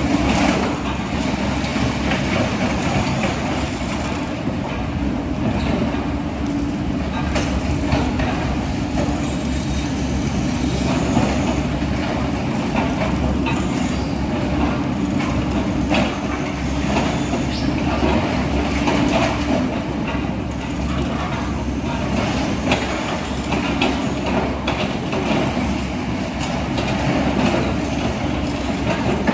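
Machinery running steadily: a constant hum with scattered clicks and rattles.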